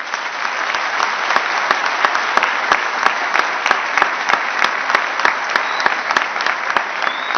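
Audience applauding: dense, steady clapping with louder single claps standing out, starting as the speaker breaks off.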